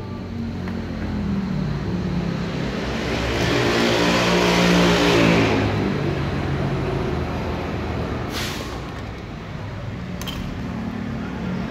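A road vehicle's engine passing by, growing louder to a peak about halfway through and then fading away.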